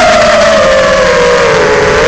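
FPV drone's brushless motors and propellers whining, the pitch sagging slowly.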